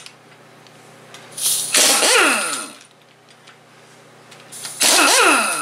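Large impact wrench run in two bursts of about a second each on the sump bolts of an Onan opposed-twin engine, the pitch falling through each burst, to break the bolts loose.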